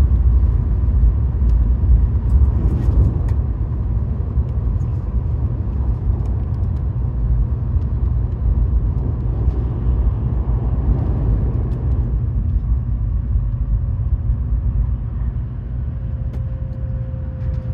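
Passenger train running at speed, heard inside the carriage: a steady low rumble of the wheels and running gear. It eases slightly over the last few seconds, and a faint steady whine joins about thirteen seconds in.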